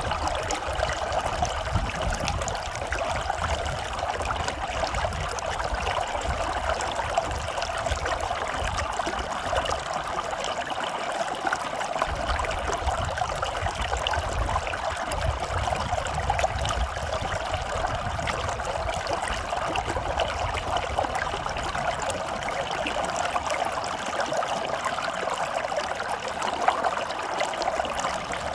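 Running water flowing and trickling steadily without a break.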